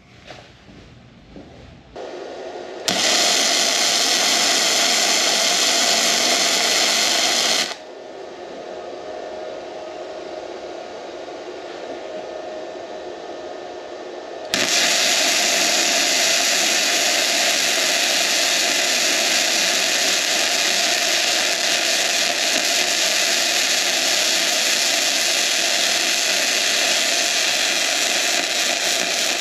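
Hynade MTS155 FX flux-core wire welder's arc crackling and hissing, spitting spatter, in two runs. A short bead of about five seconds starts near three seconds in, and after a quieter steady stretch a long unbroken bead starts about halfway through.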